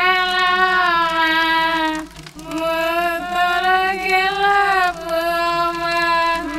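A high voice slowly singing a lullaby melody in long held notes, with a brief breath-like pause about two seconds in.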